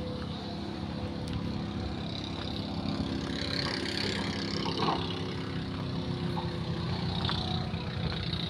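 Hydraulic excavator's diesel engine running steadily, with a few faint short knocks.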